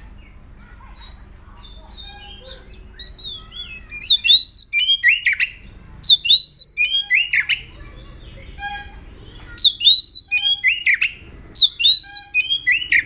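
Oriental magpie-robin singing: a few soft notes, then from about four seconds in four loud bursts of clear whistled notes, many sliding downward, with short pauses between them.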